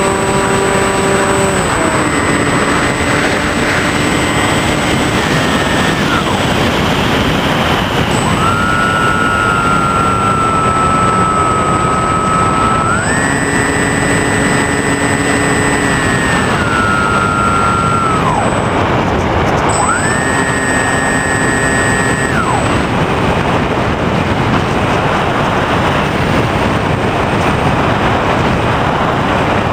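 Small electric RC airplane heard from its onboard camera: a steady rush of air noise, with the electric motor's whine holding steady pitches and jumping up and down between them as the throttle is changed. About two-thirds of the way through the whine drops out, leaving only the air noise as the plane glides in on its landing approach.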